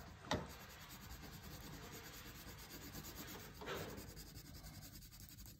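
Wax crayon scribbling back and forth on paper: a faint, steady scratchy rubbing, with a small tap just after the start.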